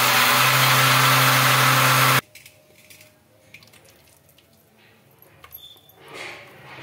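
Electric mixer grinder running at full speed as it grinds soaked dosa batter smooth. It cuts off suddenly a little over two seconds in, followed by faint clicks and the soft sound of the thick batter being poured into a steel bowl near the end.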